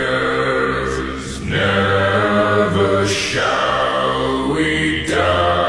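Wordless vocal music: a choir of voices holding long chanted notes, moving to a new chord about every two seconds.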